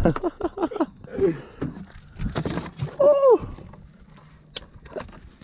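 Quick bursts of laughter, a rustle, then one drawn-out vocal cry that falls in pitch, followed by a few light knocks and clicks as long freediving fins are handled.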